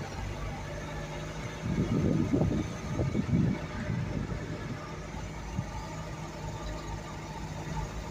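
Suzuki Sidekick's engine running steadily as it drives a rough dirt track, with louder low rumbles from the jolting ride about two and three seconds in.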